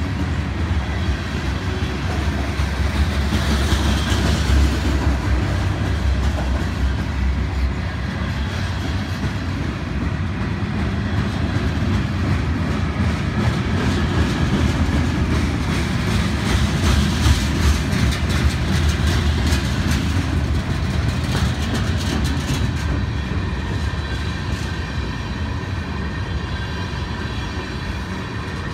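Covered hopper and tank cars of a long freight train rolling slowly past: a steady rumble of steel wheels on the rails, with clicks as the wheels cross the rail joints.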